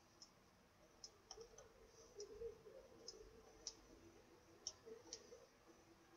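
Faint, irregular computer mouse clicks, about nine in six seconds, over near-silent room tone.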